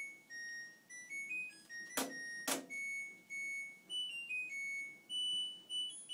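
Washing machine's end-of-cycle tune, a melody of clean electronic beep notes stepping up and down in pitch, signalling that the load is finished. Two sharp clicks come about two seconds in.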